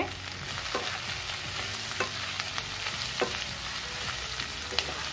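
Ivy gourd, potato and onion sizzling in hot oil in a kadhai as they are stirred, with a few brief knocks of the stirring utensil against the pan.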